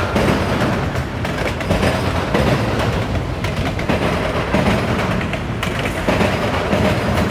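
Auto rack freight train rolling past with a steady rumble of steel wheels on rail, broken by irregular sharp bangs as the wheels hammer over a rail diamond crossing.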